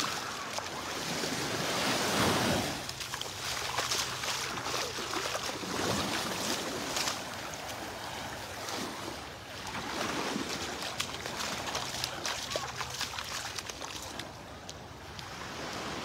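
Small Gulf of Mexico waves lapping and washing up on a sandy shore, the wash swelling and fading every few seconds.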